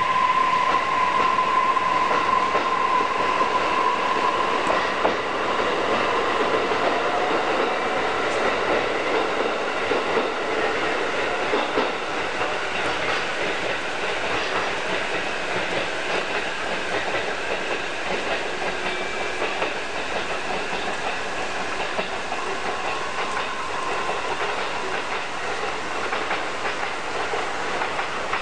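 Electric train running over the rails with a clickety-clack of wheels on rail joints, gradually fading. A steady high tone sounds for the first few seconds and dies away.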